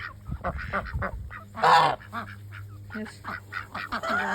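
A flock of domestic ducks calling over and over in short, repeated honking quacks, with one louder call near the middle.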